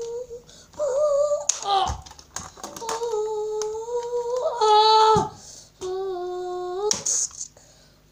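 A child's voice making humming sound effects for a toy fight: several held notes a second or so long, one of them dropping sharply in pitch about five seconds in, with a few sharp knocks and clatters of plastic action figures between them.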